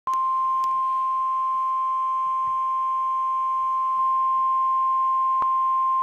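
The National Weather Service warning alarm tone, one steady 1050 Hz tone held unbroken, sounding from a Midland weather alert radio's speaker as a test activation.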